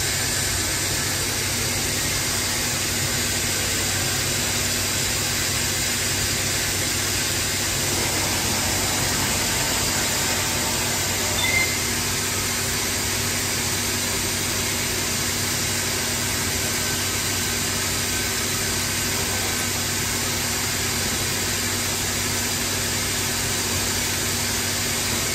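Anderson Stratos Pro CNC router running, its spindle head moving over a particleboard sheet: a steady, even noise of spindle and dust extraction. It grows a little fuller about eight seconds in, with one short blip near the middle.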